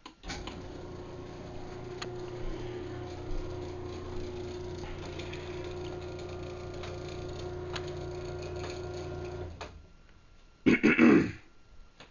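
Craftsman 1/2 hp belt-drive garage door opener started from the wall button: a click, then its motor runs with a steady hum for about nine and a half seconds, likely its opening travel, and stops suddenly. A second later a short, loud throat-clearing.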